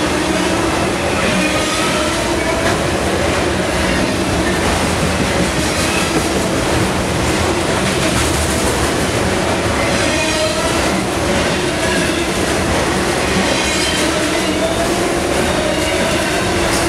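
Freight cars of a manifest train (tank cars, then autoracks) rolling past close by: a steady rumble and rattle of steel wheels on rail, with faint wavering wheel squeal coming and going.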